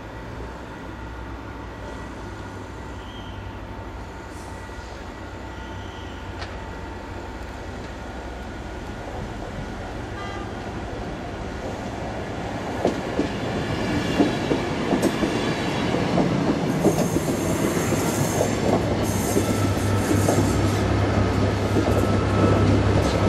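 A train approaching and passing, growing steadily louder, its wheels clicking over rail joints from about halfway, with brief high wheel squeals near the end.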